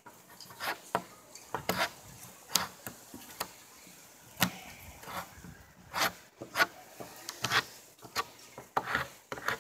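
A hand tool scraping and brushing over a pecky cypress board in short, irregular strokes, cleaning the old fungus out of the pockets in the wood.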